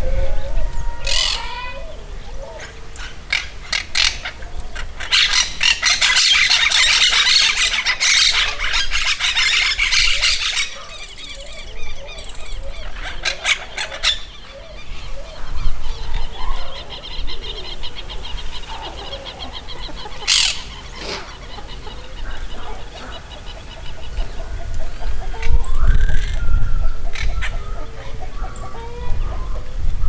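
Monk parakeets squawking and chattering, with a stretch of fast, dense chatter about five seconds in. A low rumble comes in near the end.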